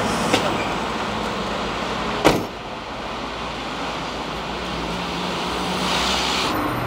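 A van's cab door slammed shut once about two seconds in, over steady vehicle and street noise.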